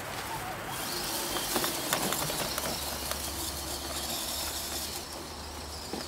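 Radio-controlled 6x6 truck driving over leaf litter: a steady high whine from its electric motor and gears, with a few sharp crackles of dry leaves and twigs under its wheels about two seconds in.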